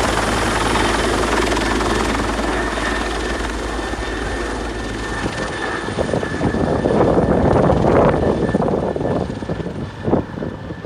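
Helicopter flying: a steady rotor-and-engine rumble with a thin high whine. About halfway through, the low rumble drops away and the sound turns uneven and gusty.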